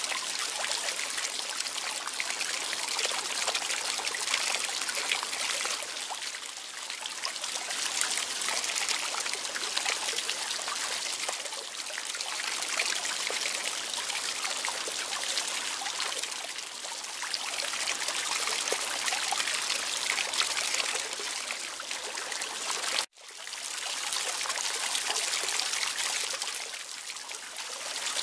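Running water trickling and splashing steadily. About three-quarters of the way through it cuts out for an instant, then fades back in.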